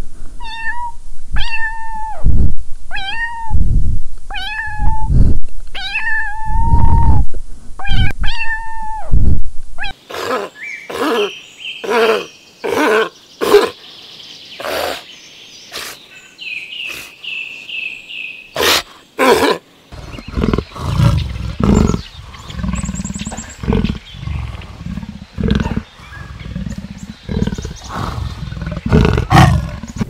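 A kitten meowing, about six separate meows in the first ten seconds. After that come other animal sounds: clicks and short calls, then low repeated sounds near the end.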